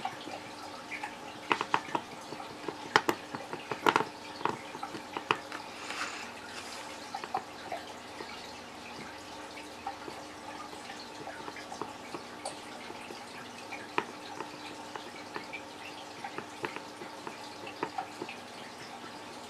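Hot soldering iron tip melting and scraping along the cut edge of a plastic tackle box divider, giving irregular small crackles and ticks that are busiest in the first four seconds.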